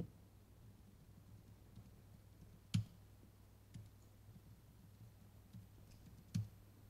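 Sparse clicks and taps from a laptop being worked, two louder ones a few seconds apart with fainter ones between, over a faint steady room hum.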